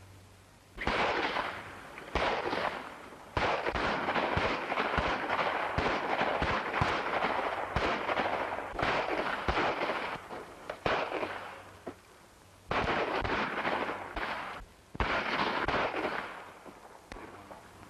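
Gunfight in an old western film soundtrack: many gunshots in quick succession, fired in bursts over a crackling background, with short lulls about twelve and fifteen seconds in.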